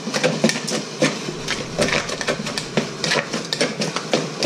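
Bamboo-shoot salad being mixed by hand in a red plastic bowl: irregular clicks and knocks against the bowl, several a second.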